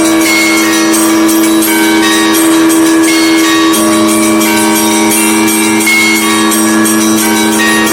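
Russian Orthodox church bells ringing together: many smaller bells struck in quick succession over the steady hum of large bells.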